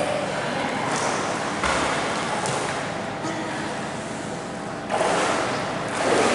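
Splashing water and the echoing wash of an indoor swimming pool as children swim, louder about five seconds in.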